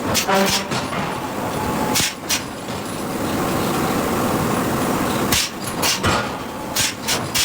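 Hydraulic forging hammer striking steel among the steady din of forge-shop machinery. Sharp blows land near the start, about two seconds in, and several times between five and seven seconds.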